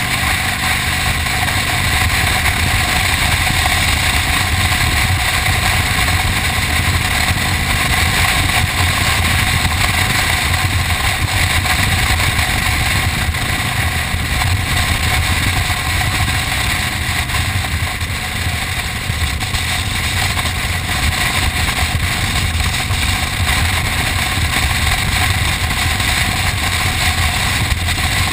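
Motorcycle engine running steadily at cruising speed, mixed with a constant rush of wind and road noise over the camera's microphone.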